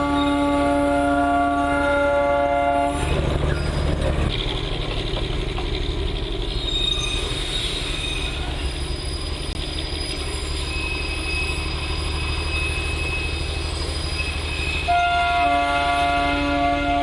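Darjeeling Himalayan Railway toy train sounding its horn in a long chord for about the first three seconds, then rumbling past on the narrow-gauge track with a thin high squeal, before the horn sounds again near the end.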